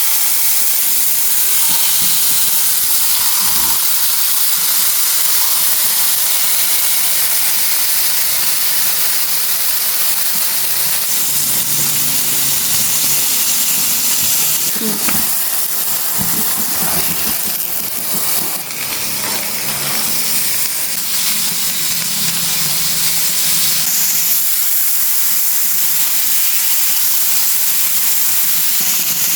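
Mackerel frying in hot oil: a loud, steady sizzle, with a few knocks about halfway through.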